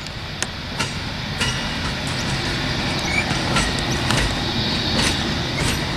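Amtrak Superliner passenger cars rolling slowly over the track: a steady rumble with scattered, irregular sharp clicks.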